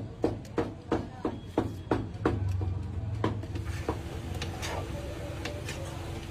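Metal spatulas knocking on a flat metal griddle in a quick, even rhythm, about three knocks a second, for the first two seconds or so. Then comes a steadier scraping and tossing of shredded chicken on the griddle, with occasional clicks.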